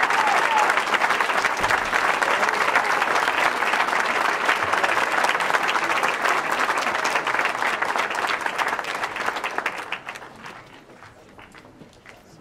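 Audience applauding: a dense round of clapping that thins out and dies away about ten seconds in, leaving a few scattered claps.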